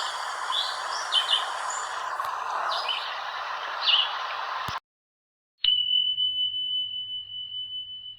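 Outdoor background noise with several short, high bird chirps; the sound cuts off suddenly about five seconds in. After a brief silence, a single high bell-like ding rings out and slowly fades over a low hum.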